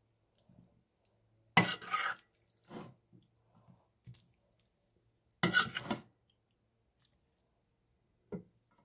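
A metal ladle scooping thick curry from a steel pot and tipping it onto a ceramic plate: two louder scrapes with wet plops of food about four seconds apart, softer clinks between, and a short knock near the end.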